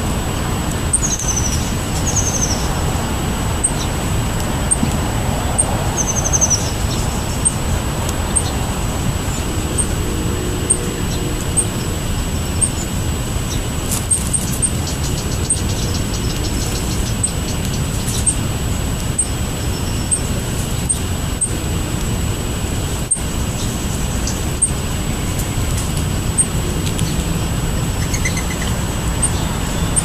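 Steady low rumble of road traffic, with short high bird chirps over it and a few quick falling chirps in the first seven seconds.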